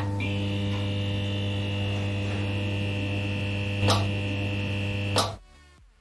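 Electrical hum and buzz of a neon sign, as a sound effect: a steady low buzz with a thin high whine over it, and a crackling click about four seconds in. A last crackle comes just over five seconds in, and then the buzz cuts off.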